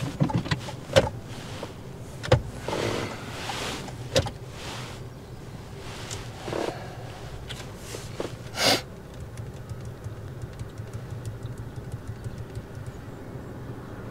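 Cabin sound of a hybrid car moving off from the kerb: a steady low hum with a few sharp clicks and knocks from the controls in the first half, then an even low running rumble as it pulls away quietly.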